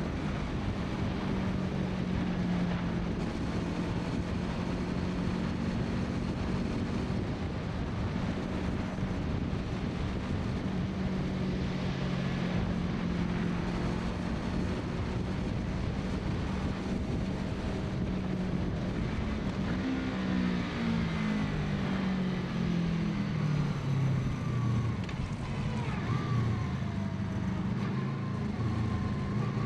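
2014 Honda VFR800F's V4 engine running through a full exhaust system, holding a steady note for about twenty seconds, then dropping in pitch in steps and rising again near the end.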